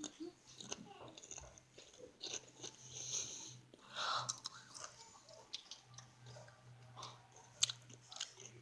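A person chewing crunchy chips with the mouth close to the microphone: irregular crisp crunches and chewing, the sharpest crunch a little before the end.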